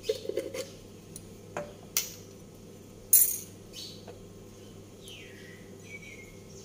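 A few scattered clinks and knocks of a spoon and kitchenware, the loudest about three seconds in. Near the end comes a faint whistle-like tone that falls in pitch.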